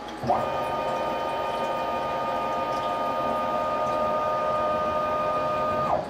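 CNC mill's stepper motors whining steadily as the table traverses, starting with a short rising glide as they speed up and cutting off abruptly as the move ends.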